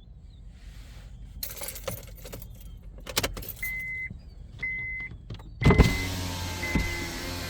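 A car being got into and started: clicks and clatter, then a short electronic warning chime repeating about once a second, then a loud start about two-thirds of the way in, after which the engine runs with a steady low hum and pitched sound.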